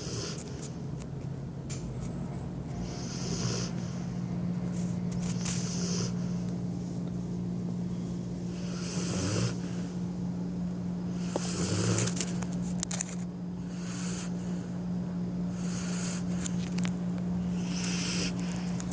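Golden retriever snoring heavily in its sleep, one raspy snore about every two and a half seconds, two of them near the middle louder and deeper.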